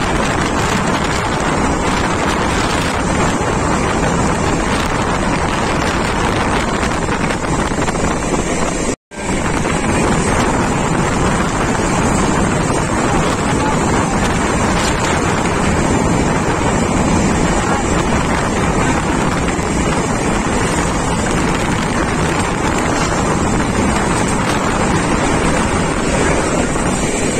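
Wind rushing over the microphone at the window of a fast-running passenger train, mixed with the steady running noise of the coach. The noise is steady and loud, and cuts out for a split second about nine seconds in.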